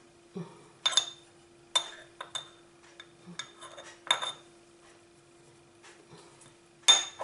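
Metal teaspoon clinking against a small glass spice jar while scooping ground cumin. There are about half a dozen short, ringing clinks, spaced irregularly, and the loudest comes near the end.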